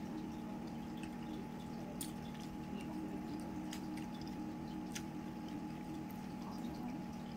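Kitchen background: a steady low hum with a few scattered faint clicks and drip-like ticks.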